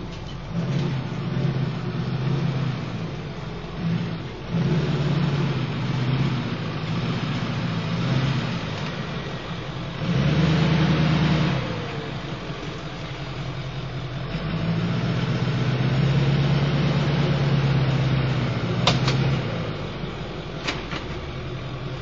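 Pickup truck engine running while the truck maneuvers with a gooseneck stock trailer, the note swelling and easing with the throttle. It is loudest about ten seconds in and again for a few seconds later on, with two sharp clicks near the end.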